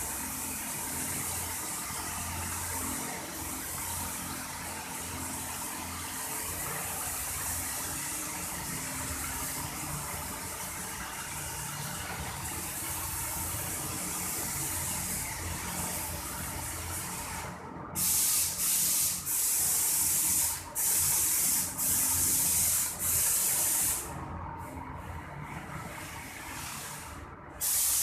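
Paint spray machine spraying wall paint: a steady hiss over the low hum of the machine. About two-thirds of the way in the hiss turns louder and comes in several runs with short, sharp breaks, then drops back, and a loud run starts again near the end.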